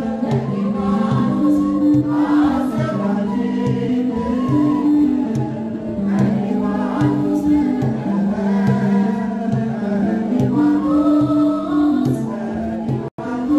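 A choir sings an Ethiopian Orthodox hymn (mezmur) in held, stepping tones, with hand-clapping, a washint flute and a krar lyre, over an even drumbeat. The sound cuts out briefly near the end.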